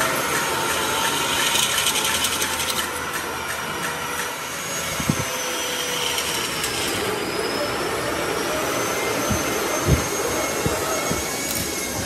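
An electric motor in a workshop tool running steadily with a high whine that wavers slightly in pitch. A few dull knocks sound in the second half.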